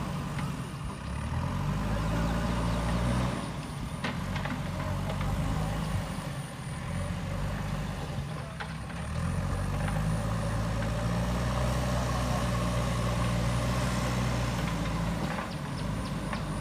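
Heavy diesel engine of construction machinery running, its revs rising and falling, with a few sharp metallic clanks. A faint, high, repeated beeping comes in short runs.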